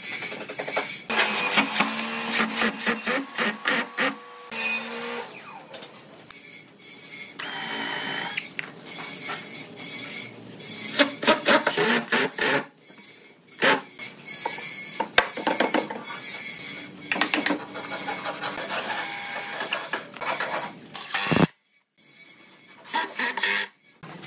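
A cordless drill running in short bursts as it drills into pine boards, among sharp knocks and clatter of wooden boards and clamps being handled.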